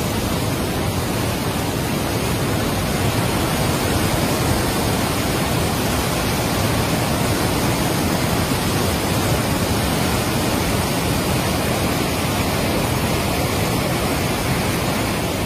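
Swollen, muddy floodwater torrent rushing past in a steady, loud, unbroken rush of water.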